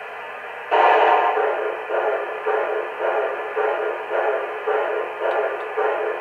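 MTH Proto-Sound 1 steam sounds from an O-gauge Jersey Central Camelback locomotive's speaker. After about half a second of steady hiss, a sudden loud burst starts, then it settles into slow, even chuffs about two a second as the engine starts off.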